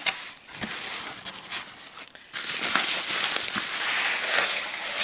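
Packaging being handled and unwrapped: scattered rustles and clicks, then from about two seconds in a louder, continuous crinkling of the wrapping.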